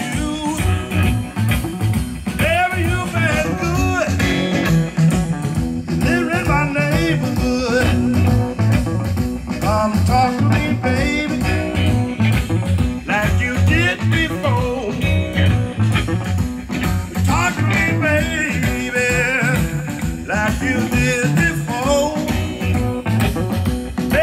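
A blues record with guitar and singing over a steady beat, played back through a vintage Stromberg Carlson 880 G valve amplifier and Yamaha NS-1000 loudspeakers.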